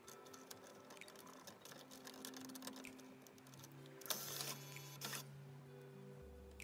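Sony MHC-RX99 CD changer mechanism moving: its motor and plastic gears give a short whirr about four seconds in and another brief one a second later as a disc is brought over the optical pickup, with small ticks between. Faint background music with a slow bass line runs underneath.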